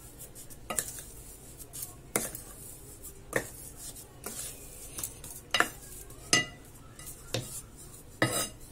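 Wooden spoon stirring a crumbly mixture of ghee-roasted flour and powdered sugar in a glass bowl, knocking and scraping against the glass about once a second, some knocks ringing briefly.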